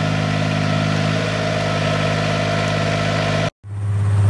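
Old Yanmar 10-row riding rice transplanter's engine running steadily. It cuts off abruptly about three and a half seconds in, and a different low steady hum starts right after.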